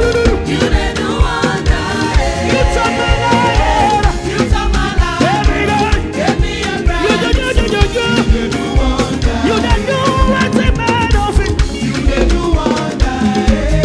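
Live band playing upbeat African gospel praise music with a steady, danceable beat, with voices singing over it.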